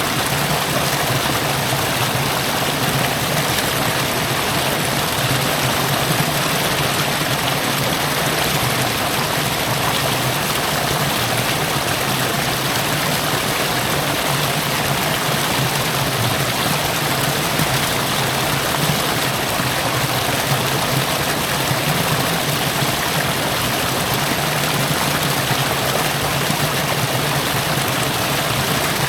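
Steady rush of river water running over rocks, with a low rumble under it.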